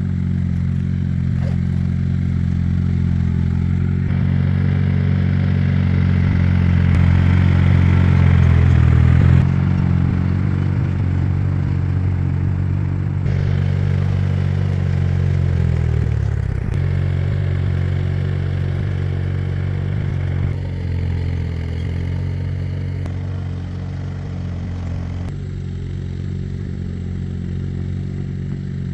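Farm machine's engine running continuously with a mechanical clatter, its pitch shifting slightly and dipping briefly about sixteen seconds in.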